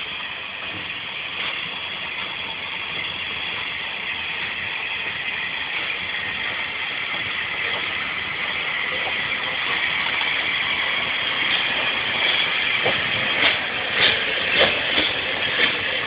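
Bulleid West Country class Light Pacific steam locomotive 34007 moving off slowly with a steady hiss of steam that grows louder as it approaches. From about twelve seconds in come regular exhaust beats, a little under two a second, as it draws level.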